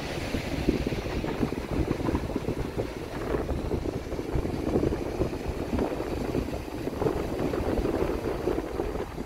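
Wind buffeting the microphone, a rough low rumble that rises and falls in gusts.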